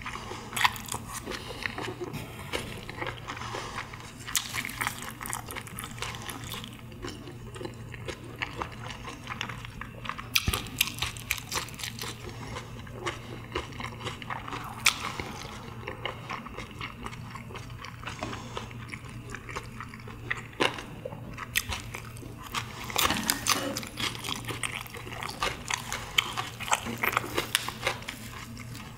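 Eating sounds: chewing of sliced pressed meat (pyeonyuk) wrapped in lettuce leaves, with crisp crunches and irregular sharp clicks throughout, over a faint steady low hum.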